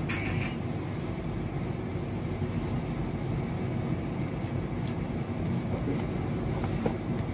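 Steady low background hum, with a short click at the start and a few faint light ticks later on.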